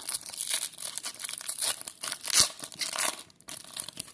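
Foil trading-card pack wrapper being torn open and crinkled by hand: a dense crackle with one sharper rip about two and a half seconds in, dying down near the end.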